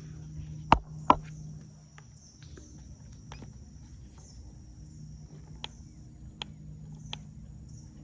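Sharp plastic clicks from a battery mini chainsaw as its chain oiler is primed: two loud clicks about a second in, then a few fainter ones later. Insects trill faintly behind a steady low hum.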